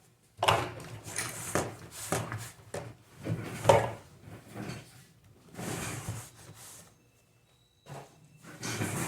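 Irregular clatter, knocks and scrapes of electric-fan parts being handled and fitted together during reassembly. The sounds come in uneven bursts with short pauses between them.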